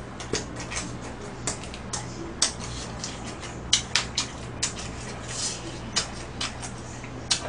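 Close-up eating sounds: irregular sharp clicks and wet smacks from chewing tteokbokki and fried snacks, with light taps of chopsticks and food against plastic takeout containers.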